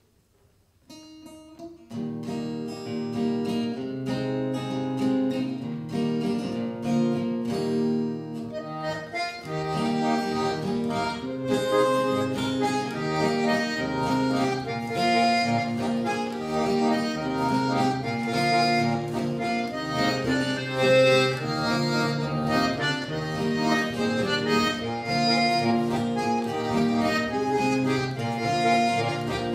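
Live traditional dance music for an écossaise: a Saltarelle button accordion leads the tune over strummed acoustic guitar, starting about two seconds in. The band sound fills out from about nine seconds in.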